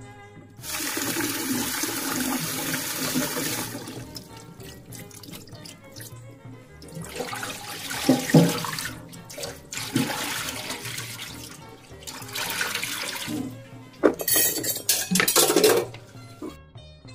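Water from a tap running into a basin in a stainless steel sink, hands swishing and rinsing sliced banana-stem pieces, with splashes into the sink and a couple of heavier gushes near the end. Background music plays underneath.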